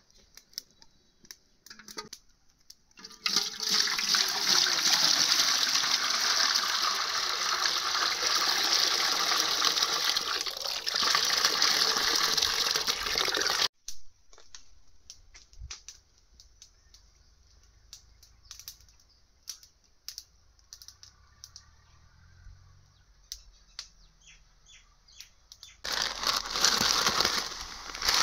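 Water running and pouring in two long loud rushes, the first breaking off suddenly, with small clicks and knocks between them.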